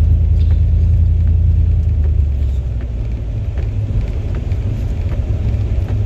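Car road noise heard from inside the cabin while driving: a steady low rumble, heavier for the first two seconds.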